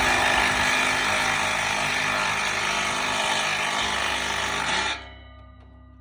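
A handheld power tool running steadily and loudly, cutting off abruptly about five seconds in.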